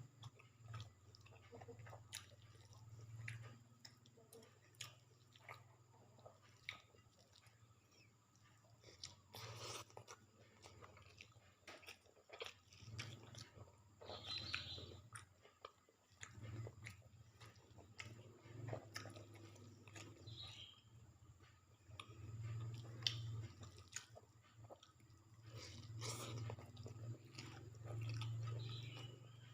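A person chewing and biting food close to the microphone: soft, irregular chewing with scattered small mouth clicks and smacks.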